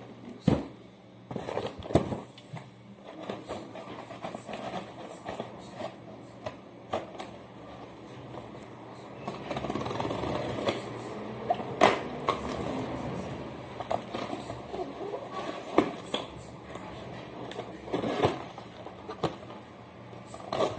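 A cardboard shipping box being handled and opened: scattered knocks and clicks, with a longer stretch of rustling and scraping about halfway through.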